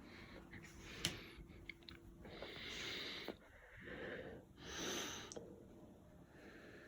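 Faint breathing and sniffing close to the microphone: three noisy breaths in the middle, with a sharp click about a second in.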